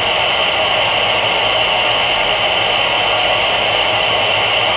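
Steady loud static hiss from a CB radio tuned to channel 22 AM, an open signal carrying only noise and no voice.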